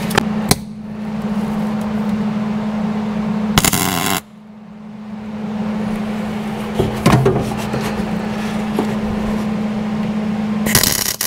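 MIG welder tack welding a 1/8-inch steel plate onto the car body: the arc crackles and buzzes in two runs of a few seconds each, with a short break about four seconds in.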